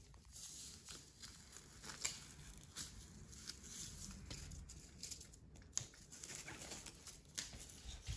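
Faint, irregular rustling and crackling of a strip of corrugated cardboard being waved and handled by a child's hands, with a few sharper little clicks.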